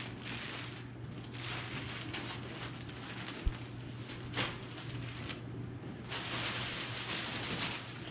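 Clear plastic bag and clothing rustling and crinkling as garments are handled, louder in the last couple of seconds, with a single short bump about three and a half seconds in.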